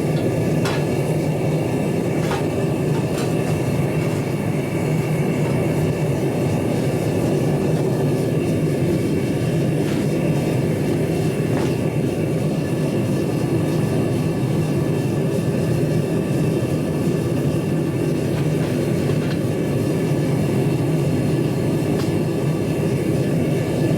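Small forge running with a steady, loud rushing noise, a few faint clicks over it. It is heating a steel gear hob to hardening temperature before an oil quench.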